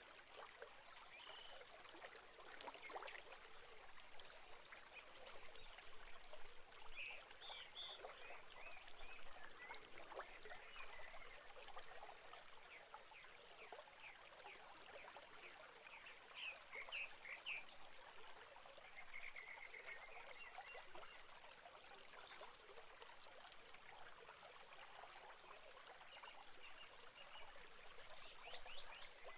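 Faint crackling and rustling inside a great tit nest box, with a few brief, thin, high peeps in small clusters from newly hatched great tit chicks.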